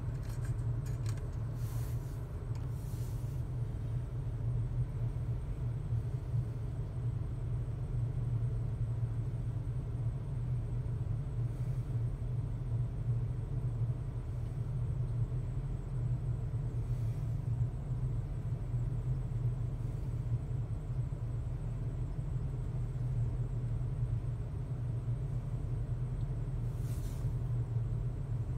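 Ford Triton 6.8-litre V10 of a 2003 motor home on an E-450 chassis idling steadily just after a cold start. It is heard from inside the cab as an even low rumble.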